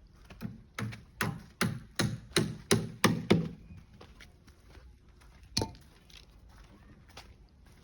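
Hammering on wood: a quick run of about nine sharp knocks, growing louder, then a single knock a couple of seconds later.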